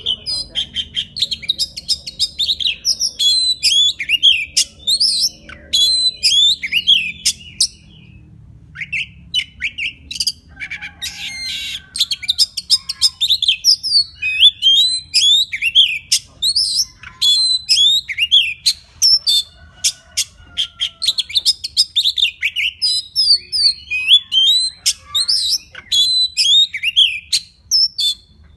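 Oriental magpie-robin singing a long, varied song of quick whistled phrases mixed with sharp high chips and a few harsher notes, with a short lull about eight seconds in. It is the male's song calling to a female.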